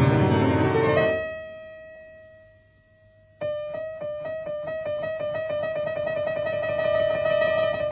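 Solo piano music: a full passage ends about a second in on a single high note that rings out and fades almost to silence, then a new passage starts with rapid repeated notes.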